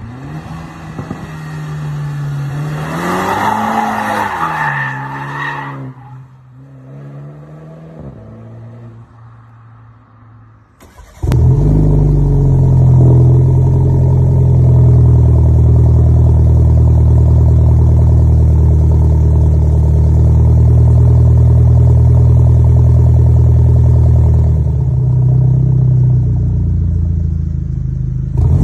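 BMW 330i G20's 2.0-litre turbo four-cylinder as the car drives past, its engine note rising to a peak and then falling away as it goes by. About eleven seconds in, the same car's exhaust is heard close behind the tailpipes, running loudly at a steady speed.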